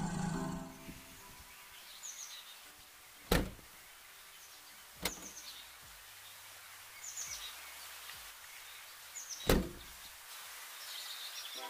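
A small Suzuki hatchback's door clunking: a sharp knock as it opens a little over three seconds in, a lighter knock about two seconds later, and the loudest one, the door shut, near the end. Birds chirp briefly now and then in between.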